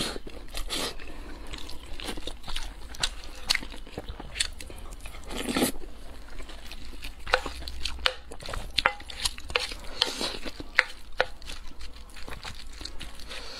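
Close-miked eating sounds of someone chewing soft mapo tofu and rice: wet chewing, lip smacks and many short clicks. A wooden spoon stirs and scrapes in a metal bowl now and then, with one louder burst a little before halfway through.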